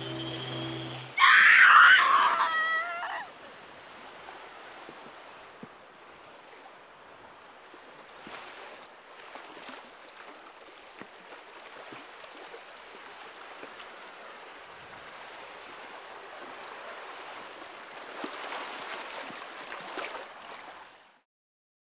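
A loud, wavering cry about a second in, then the steady wash of small waves breaking on a beach, which cuts off abruptly near the end.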